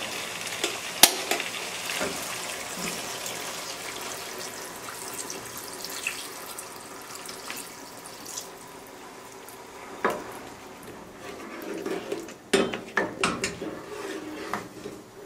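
Water poured from a kettle into a pot of soup ingredients, a steady splashing pour that ends about two-thirds of the way through. Near the end, a wooden spoon stirring the soup knocks several times against the coated pot.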